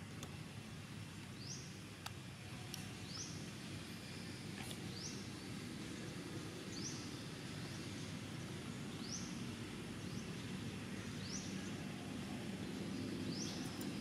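Outdoor ambience: a short, high, rising chirp repeats about every two seconds over a steady background hiss, with a few faint clicks.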